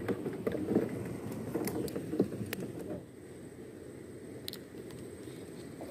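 Low steady wash of water and wind around a small wooden boat, with a few faint clicks.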